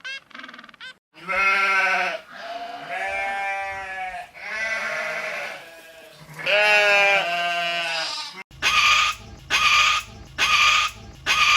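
Animal calls: a few long, wavering, pitched calls one after another, then, after an abrupt change of sound, a run of about five short, harsh calls in quick succession.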